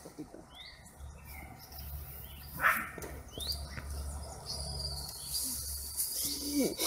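Birds chirping in short rising calls, with a steady high-pitched insect tone through the middle and a low hum underneath. A sharp knock about two and a half seconds in is the loudest sound.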